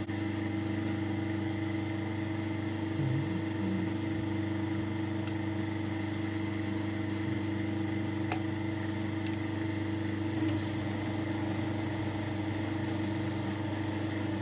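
South Bend lathe running steadily, its motor and drive giving an even hum with a few faint light ticks, while the head of a small screw is turned.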